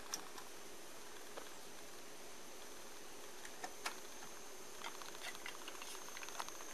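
Clicks from the controls of an MCS 683-3595 dual cassette deck. The power switch clicks on and a faint steady high whine starts right after it. A sharper click comes a little before the middle, when the deck 1 cassette door is ejected open, and light plastic clicks follow near the end.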